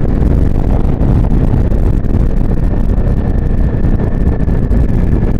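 Wind buffeting the microphone over the running engine and road noise of a Xiangshui JS700 motorcycle riding at speed. A faint steady high whine comes in about halfway through.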